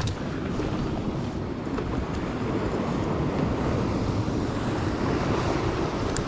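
Sea waves washing against shore rocks, with wind on the microphone; a steady rushing that swells a little through the middle.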